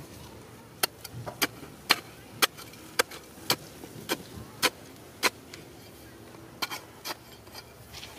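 Steel digging bar jabbed repeatedly into dry, stony soil and crumbly rock: sharp strikes about two a second, a pause of about a second past the middle, then a few more strikes near the end.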